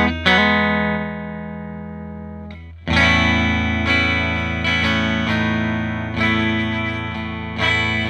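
Amplified Tele-style electric guitar on an Alnico 5 big-pole bridge single-coil pickup, played with the guitar's volume knob rolled down. A chord struck at the start rings out and fades for over two seconds, then a fresh chord almost three seconds in is followed by more strummed chords about once a second.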